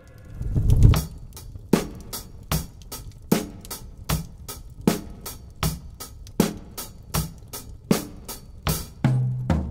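Slow, steady drum beat: a sharp hit about every three-quarters of a second with lighter hits between. It opens with a low swelling boom and ends with a low held note and a final boom.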